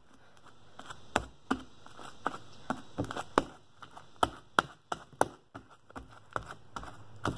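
Sticky slime being stretched, squeezed and pressed against a wooden tabletop by hand, making a string of sharp, irregular clicks and pops, about two a second.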